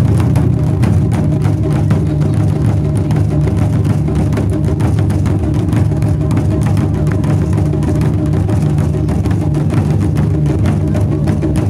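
Taiko ensemble drumming: several large Japanese barrel drums struck hard with wooden sticks in a fast, dense, unbroken rhythm.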